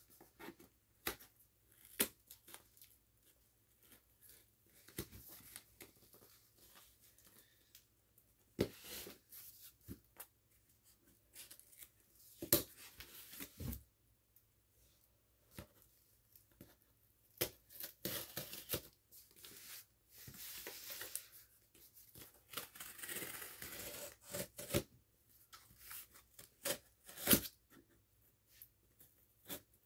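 Box being opened by hand: tearing and rustling of the packaging in irregular stretches, with sharp clicks in between. The longest tearing comes about two-thirds of the way through.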